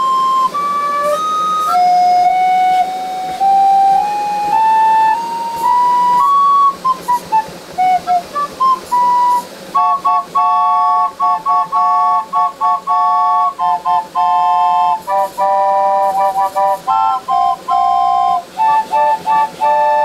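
Recorders of a keyboard-played pipe organ, blown by air from a vacuum cleaner's exhaust through servo-driven valves. They play single notes climbing step by step, then about halfway in switch to short, repeated three-note chords.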